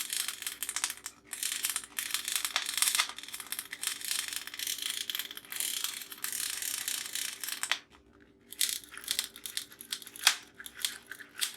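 A small toy being handled, making crinkling, crackling noise. After a brief pause about eight seconds in, it gives a run of rapid sharp clicks.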